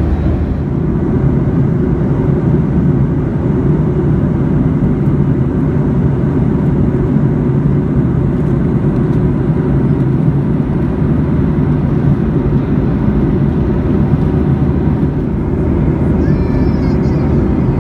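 Steady low roar of a Boeing 737-800 cabin in flight: engine and airflow noise heard from a window seat.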